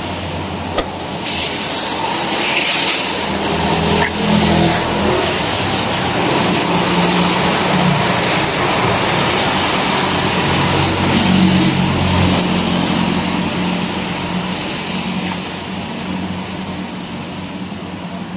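Road traffic passing on a wet street: a steady hiss of tyres with the engine hum of passing vehicles, which swells about four seconds in and again through the middle.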